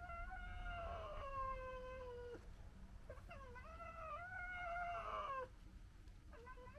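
Two long, drawn-out animal calls, each lasting over two seconds, wavering and sliding slightly down in pitch, with a short break between them.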